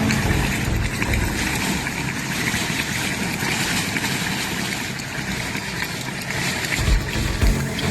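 Cyclone wind and rushing water, a steady even noise with no clear beat. Low thumps come in near the end.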